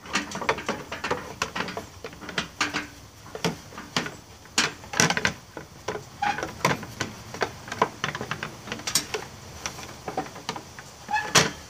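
A hard plastic belt cover knocking and scraping against a Snapper riding mower's steel frame as it is worked into place, in many irregular clicks and clunks.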